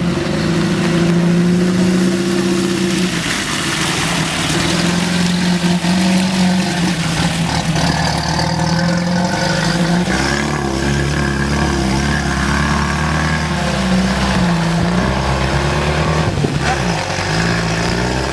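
Off-road car engine running under load, its speed rising and falling several times, over a constant rushing noise.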